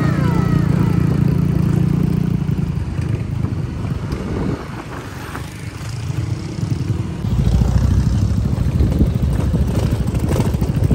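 Vehicle engine running while on the move: a steady low drone that turns into a heavier, rougher rumble about seven seconds in.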